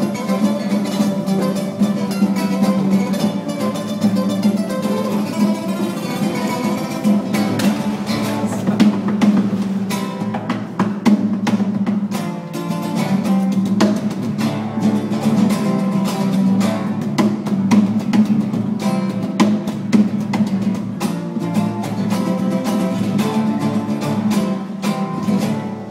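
Acoustic guitar played solo by hand: a fast stream of plucked notes and chords over a steady low bass note.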